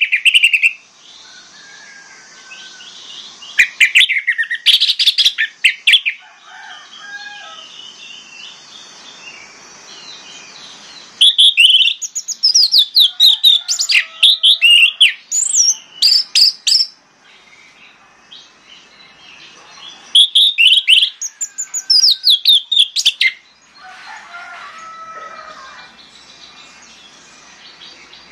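Orange-headed thrush singing loud, rapid phrases of varied whistled and trilled notes in four bursts, each separated by a pause of several seconds, with softer, lower notes in between.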